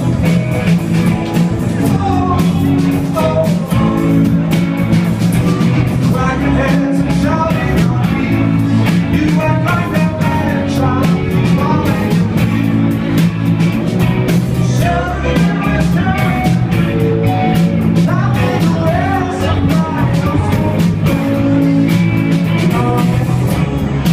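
Live rock band playing a song: electric guitars, bass and a drum kit with steady beats, and a male singer's voice over them.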